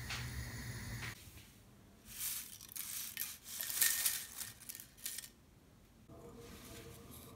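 Crisp, dry-roasted curry leaves rustling and scraping as they slide out of a frying pan onto a plate, a string of short scratchy bursts, loudest about four seconds in.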